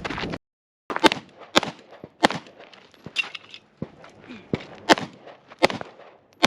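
Pistol shots: a string of about ten sharp reports, roughly half a second to a second apart.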